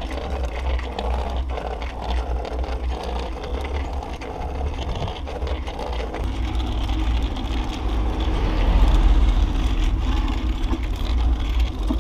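Steady low wind rumble on the microphone of a camera moving along a paved street, with rolling road noise. It shifts a little about six seconds in and is loudest around nine seconds.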